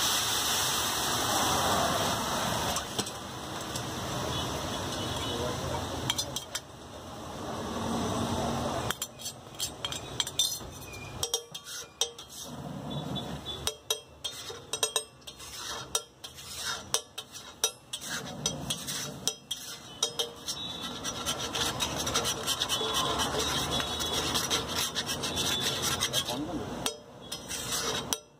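Thin masala gravy sizzling and bubbling hard on a hot flat griddle. From about nine seconds in, a flat metal spatula scrapes and stirs across the griddle in quick, repeated strokes.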